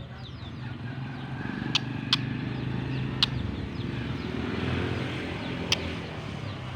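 A motor vehicle's engine running with a steady low hum that swells about two-thirds of the way through, with four sharp clicks over it.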